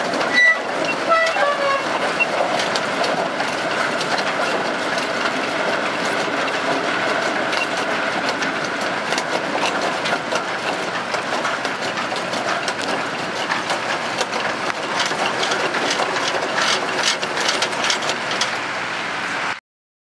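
Potato harvester running, its machinery clattering steadily as potatoes tumble off the elevator boom into a trailer, with a scatter of sharp clicks. A few short tones sound in the first two seconds, and the sound cuts off abruptly near the end.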